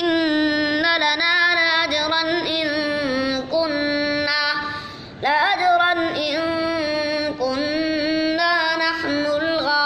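A boy's voice reciting the Quran in melodic tajweed chant, holding long notes that bend and glide between pitches, with a brief pause for breath about five seconds in.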